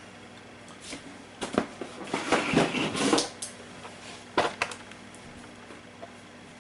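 Rummaging through game boxes and clear plastic figurine trays: rustling with a few sharp clicks and knocks, busiest about two to three seconds in, then a pause with only room noise.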